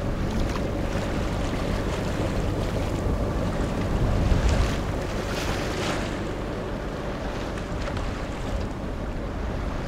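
A sailboat under way, with wind buffeting the microphone over water washing along the hull and a steady low hum beneath. It swells slightly about four seconds in.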